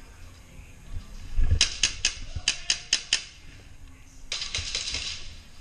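Airsoft gun firing a quick string of about eight sharp shots in under two seconds, followed about a second later by a short stretch of hissy noise.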